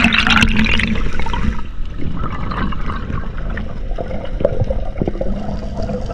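Underwater rush of air bubbles and moving water as a freediver swims up from the bottom. The bubbling hiss is loudest in the first second and a half, then gives way to a quieter watery wash with scattered small clicks.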